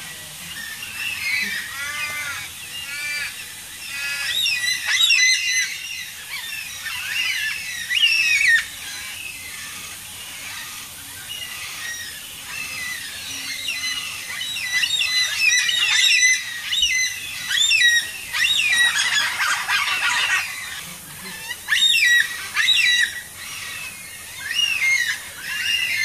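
Carnaby's black-cockatoos calling: many short, squeaky calls in quick series, busiest in the second half.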